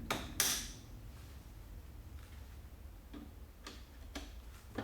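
A sharp click and a brief scrape, then a few scattered light ticks: a tool working a small metal pin or clip into place on a screw-drive garage door opener's carriage.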